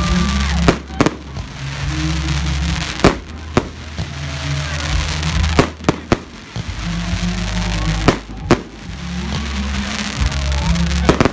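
Aerial fireworks going off: sharp bangs, mostly in pairs about every two and a half seconds, over a steady hiss.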